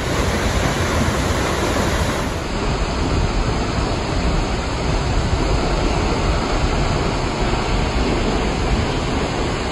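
Vernal Fall, a 317-foot waterfall, crashing into its plunge pool: a loud, steady rush of falling water. The rush shifts slightly in tone about two seconds in.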